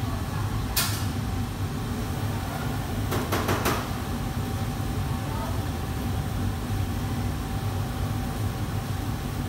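A commercial kitchen's wok range and extraction hood running with a steady low rumble. There is a single metal clink about a second in, and a quick run of about four metal clanks around three seconds in as a ladle strikes a wok.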